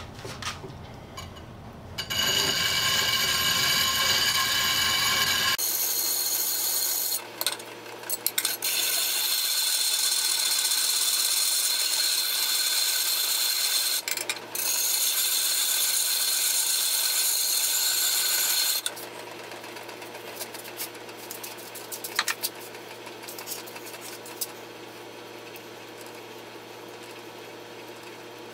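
DeWalt angle grinder with a turbo diamond cup wheel running at full speed and grinding down a sandstone grinding wheel, rough-dressing it round. It runs in a few spells from about two seconds in until about two-thirds of the way through, with brief cut-outs between. Lighter clicks and knocks come before and after.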